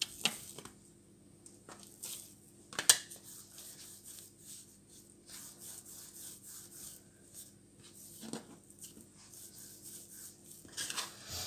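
Hands rolling chilled dough into a log on a countertop: a soft rubbing and rolling, broken by a few sharper knocks, the loudest about three seconds in.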